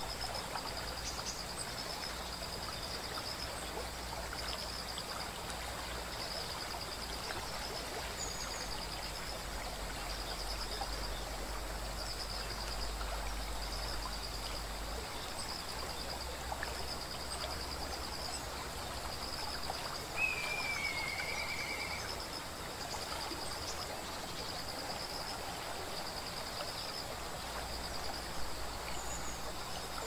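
Steady rushing of a small waterfall and stream. Over it, a high, rapidly pulsed trill repeats every second or two, and a single short whistle falling in pitch comes about twenty seconds in.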